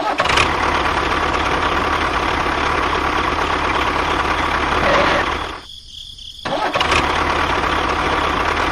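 A motor running steadily, with a brief gap a little past halfway where it almost drops out.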